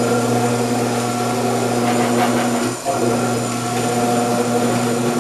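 Omcan HLC 300 vegetable cutter's electric motor running with its grating disc fitted to shred cheddar: a steady hum that dips briefly nearly three seconds in, then carries on.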